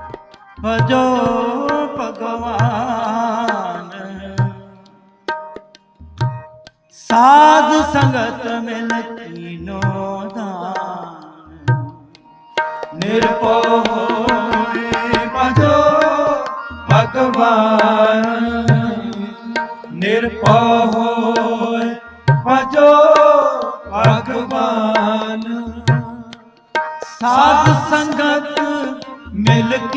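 Sikh kirtan: a male voice sings long, gliding melodic phrases of the shabad, with tabla strokes keeping time underneath.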